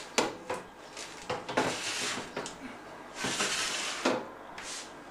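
Metal baking sheet being slid into an oven on its rack runners: a few sharp metal knocks and two longer scraping stretches as it is pushed in.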